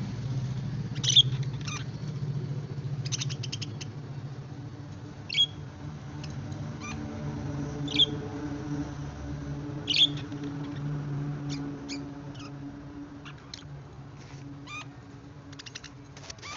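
Pet budgerigars giving single short, sharp chirps every couple of seconds, with quick runs of clicks between them, over a low steady hum.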